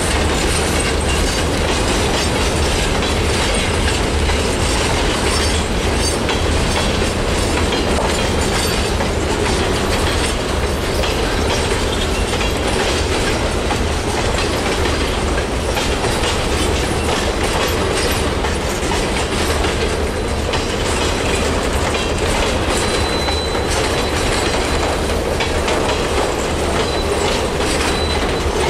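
Freight train cars rolling past at close range: a steady rumble of steel wheels on rail with continual clicking over the rail joints. A faint, thin, high wheel squeal comes and goes in the last few seconds.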